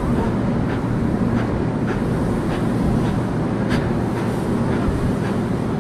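Narrow-gauge steam tank locomotive working slowly with a train of loaded sugar-cane wagons: a steady hiss of steam, with a regular beat about twice a second.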